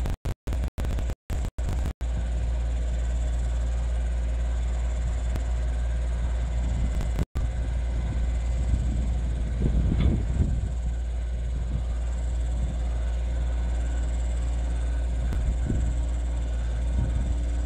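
Takeuchi TB175 compact excavator's diesel engine running steadily under load, driving an Auger Torque hydraulic earth auger as it bores into soft, muddy soil. The sound swells a little around the middle. The recording cuts out briefly several times in the first two seconds and once more about seven seconds in.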